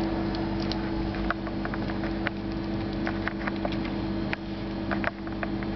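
A steady low electrical hum of two tones, with scattered faint clicks and ticks.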